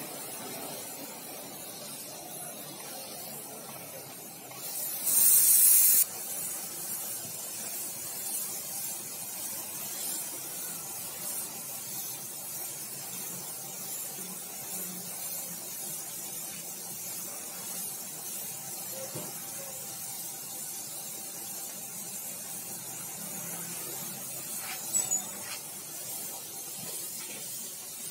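Gravity-feed spray gun hissing steadily as it sprays paint onto a car bumper, with a much louder blast of air about five seconds in lasting about a second and a half. A couple of short clicks come near the end.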